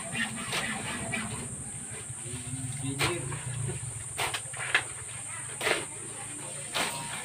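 A steel shovel scraping and scooping through a pile of cement mixed with sand and gravel on the ground. The mix is being turned by hand, with several short scrapes about a second apart over a steady high hiss.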